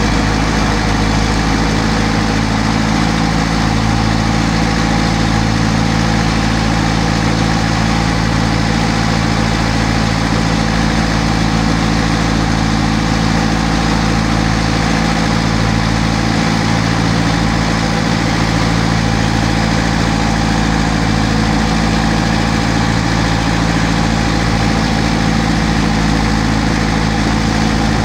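Car engine fitted as the inboard motor of a wooden jukung boat, running steadily at constant speed while the boat is under way. It gives an even low drone with no change in pitch.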